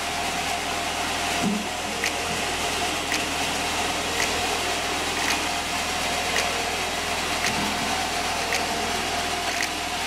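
Sawmill band saw running steadily without cutting: a constant machine hum with a light tick about once a second.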